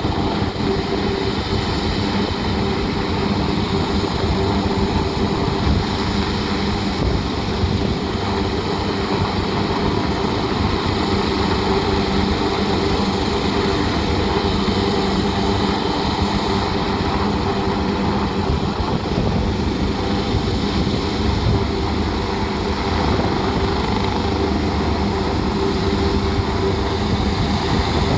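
Helicopter hovering close by: a steady rotor and turbine noise with a thin, high, unchanging whine over it.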